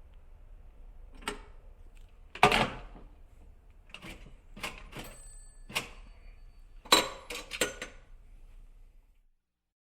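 Vintage telephone's mechanical bell clattering in short, irregular bursts, the loudest about two and a half and seven seconds in, stopping about nine seconds in.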